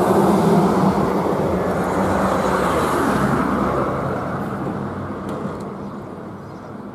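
A motor vehicle going past: a rushing noise with a steady low engine hum, loudest at the start and fading away over the last few seconds.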